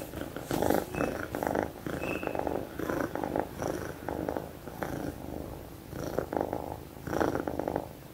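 Kitten purring close up, a continuous rough rumble that swells and fades roughly once a second with its breathing.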